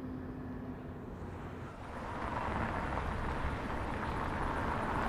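A car driving: a steady low engine rumble, with a louder rush of tyre and engine noise swelling up about two seconds in as the car draws up.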